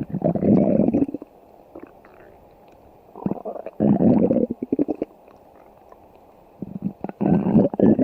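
Stomach growling: three long, gurgling rumbles, one at the start, one around the middle and one near the end, with quiet gaps between them.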